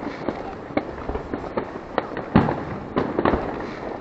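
New Year fireworks going off: a string of irregular bangs and pops at varying distances, the loudest about two and a half seconds in, with a quick cluster of reports soon after.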